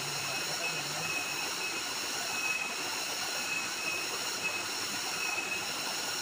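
Small waterfall pouring into a rocky stream pool, a steady rush of water, with a steady high shrill of forest insects above it.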